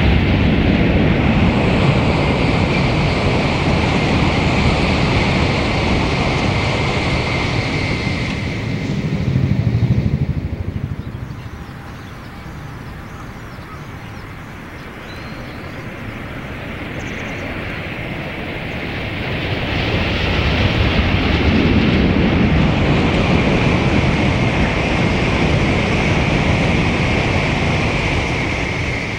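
Tokaido Shinkansen bullet trains passing at speed: a loud rushing hiss with a steady high tone dies away about ten seconds in. It stays quieter for several seconds, then builds again from about nineteen seconds as another train passes.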